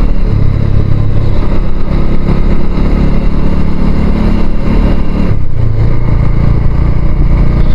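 Royal Enfield Hunter 350's single-cylinder engine running as the motorcycle is ridden at low speed. The engine eases off briefly about five seconds in, then picks up again.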